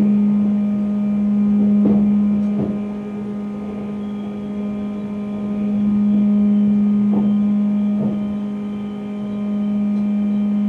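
Steady electrical hum of a Class 350 Desiro electric multiple unit, heard from its cab as the train creeps slowly up to the buffer stop.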